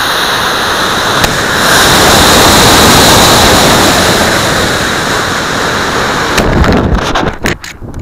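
Model rocket's black-powder motors and rushing air heard from a camera taped to the rocket's side: a loud, steady roar. About a second in it dips briefly with a click, then swells again, where the D12-0 booster hands over to the D7 upper stage. In the last second and a half it breaks into uneven gusts of wind buffeting on the microphone.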